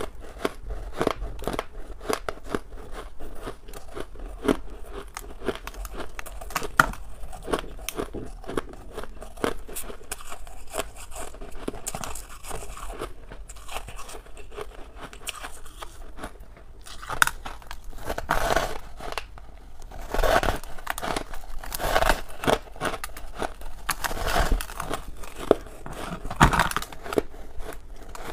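Close-up biting and chewing of a block of frosty white ice: a dense, crisp crackling and crunching, with louder crunches about every two seconds in the second half.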